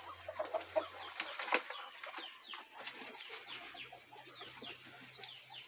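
Faint, overlapping chorus of many short, high chirps and clucks from a pen of feeding guinea pigs, with chickens close by.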